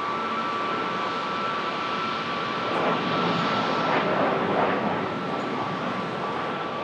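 Aircraft engines running with a steady roar and a high, steady whine, swelling slightly in the middle.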